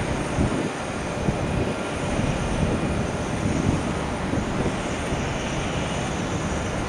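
Jet airliner engines running: the Boeing 737 of a Southwest departure, a steady, even rushing noise that holds level throughout.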